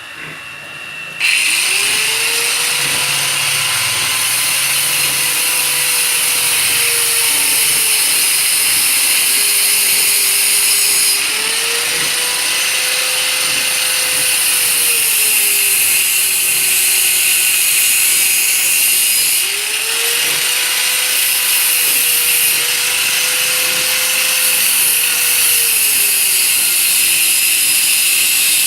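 A motor-driven machine starts about a second in and runs under a loud, steady hiss. Its hum rises, holds and sags three times in long slow cycles, as if the load on it comes and goes.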